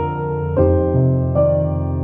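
Background music: slow piano, sustained notes changing every half second to a second.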